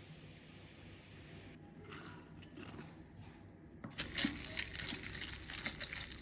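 Carbonated lemonade fizzing over crushed ice in glasses: a dense, irregular crackle of tiny pops and clicks that starts about a second and a half in and grows louder about four seconds in.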